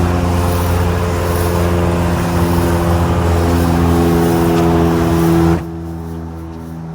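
Pressure-washing rig running steadily, an engine-like hum under the loud hiss of the soft-wash spray from the J-rod; about five and a half seconds in the spray cuts off suddenly and the level drops, leaving a quieter machine hum.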